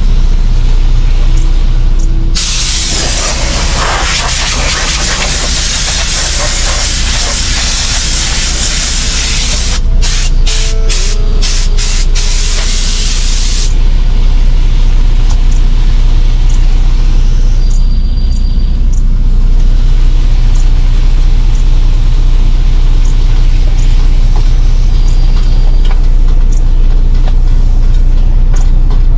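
Electric pressure cooker venting steam: a loud, steady hiss that starts about two seconds in and cuts off after about eleven seconds, with a few clicks near its end, over a steady low hum.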